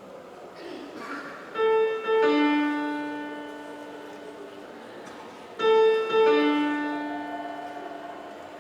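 Piano striking a short two-note figure, then repeating it the same way about four seconds later; each time the notes ring on and fade away.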